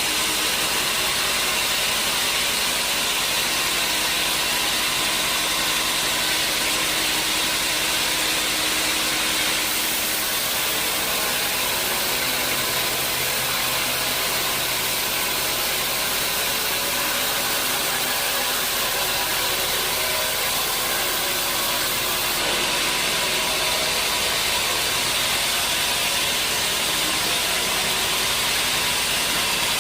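Sawmill machinery running steadily: loud, even machine noise with a strong hiss. Its tone shifts about ten seconds in and again about twenty-two seconds in.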